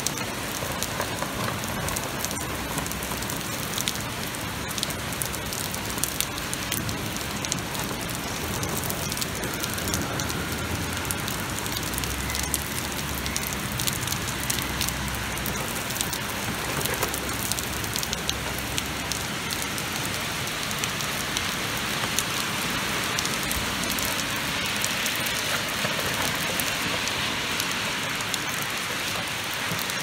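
Extremely heavy summer downpour: a steady hiss of pouring rain, dense with the patter of drops, growing a little louder in the last third. A low rumble sits under it in the middle stretch.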